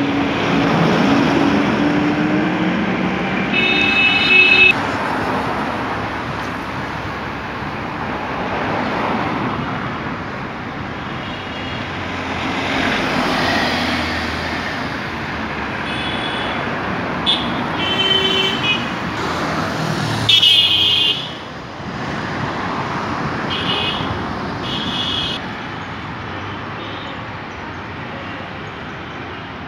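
Busy city road traffic: engines and tyres passing in a steady wash of noise. Vehicle horns honk repeatedly over it: a blast about four seconds in, a run of short beeps past the middle, the loudest honk about two-thirds of the way through, and a few more beeps soon after.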